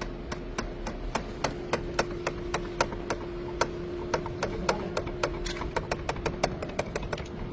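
Rapid, evenly spaced sharp taps, about three to four a second, over a faint steady hum.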